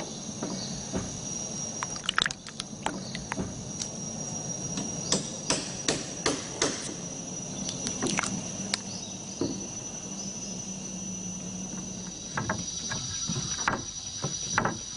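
Forest insects droning in a steady high tone, with irregular sharp knocks and taps, loudest in clusters a few seconds in and again near the end.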